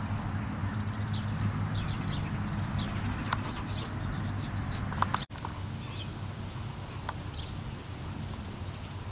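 Outdoor ambience: a steady low hum with a few sharp clicks and faint high chirps. The sound cuts out for an instant about five seconds in.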